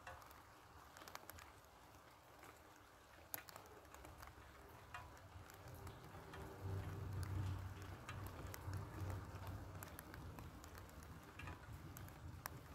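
Light rain: scattered raindrops ticking and pattering on leaves and hard surfaces over a soft hiss. A low rumble swells about halfway through.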